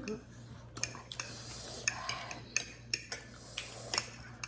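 Metal forks and spoons clinking and scraping against plates and bowls as noodles are eaten, in about seven separate sharp clicks.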